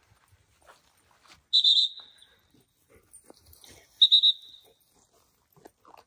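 Two short, trilled blasts on a high-pitched dog-handling whistle, about two and a half seconds apart, used to signal bird dogs working the field.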